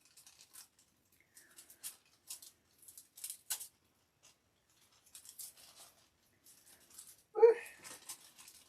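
Light handling noises of a Cricut Maker and its packaging: scattered soft clicks and rustles, with one brief louder sound near the end.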